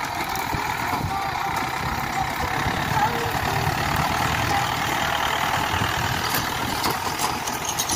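Yanmar YM 557 tractor's diesel engine running steadily while pulling a disc plough.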